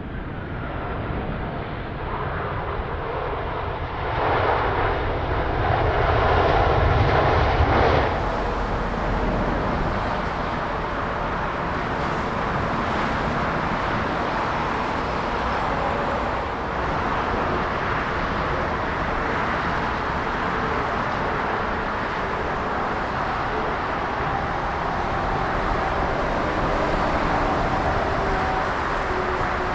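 Jet airliner engines running, loud and building to a peak about four to eight seconds in, then an abrupt change to a steady engine noise for the rest of the time.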